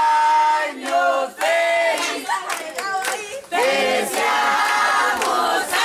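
A group of young people's voices singing together loudly, with long held notes.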